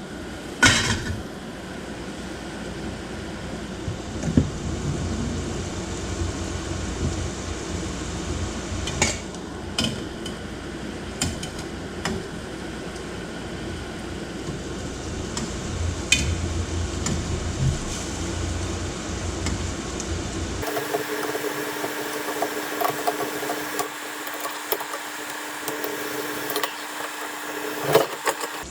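Chicken wings sizzling as their sauce simmers and reduces in the pan, with scattered sharp clinks of a utensil against the pan as the wings are turned. About 20 seconds in the sound changes abruptly to a thinner sizzle over a steady low hum.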